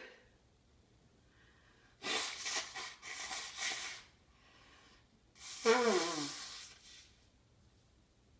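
A person's heavy, noisy breaths after a sneeze: rough breathy bursts about two to four seconds in, then a louder voiced exhale that falls in pitch about five and a half seconds in.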